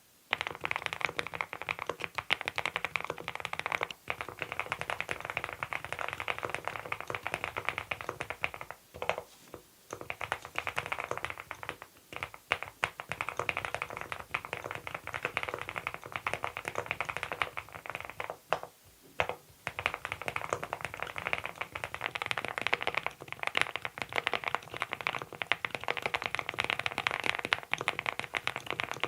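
Continuous fast typing on a Monstar Gear Ninja87 Pro ALU aluminium-case mechanical keyboard fitted with Adelie switches, a dense run of keystroke clicks with brief pauses about nine and nineteen seconds in.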